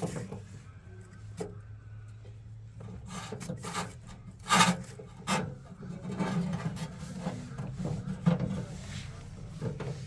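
Hands working on the back of a washing machine: rubbing and scraping with irregular knocks and clicks, the loudest about four and a half seconds in, over a low steady hum.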